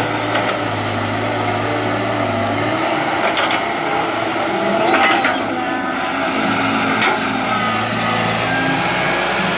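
CAT 312D hydraulic excavator's diesel engine running steadily as the machine digs, its pitch shifting with the work, with three short knocks along the way.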